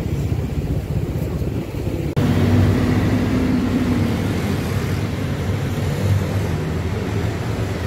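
City street traffic: cars and motorcycles passing in a steady low rumble. About two seconds in the sound jumps louder and a low engine hum comes in.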